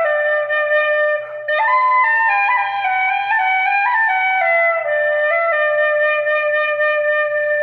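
Irish flute playing a slow melody one note at a time, with a brief break about a second in. It settles on a long held low note over the last few seconds.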